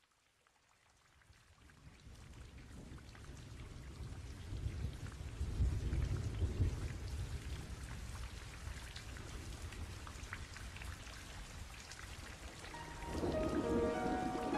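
Rain and thunder ambience fading in from silence, the low rumble of thunder loudest about six seconds in. Near the end a melody of background music comes in over the rain.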